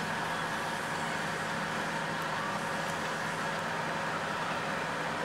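A heavy engine running steadily at an even pitch, a constant hum with a haze of mechanical noise over it.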